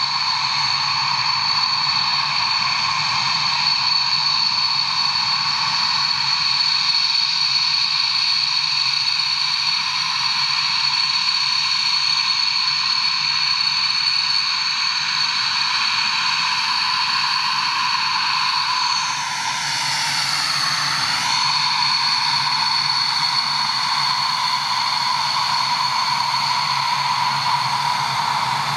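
Dassault Mirage 2000's single jet engine running at taxi power: a steady high-pitched whine over a low rumble. A little over two-thirds of the way through, the whine briefly dips and rises in pitch.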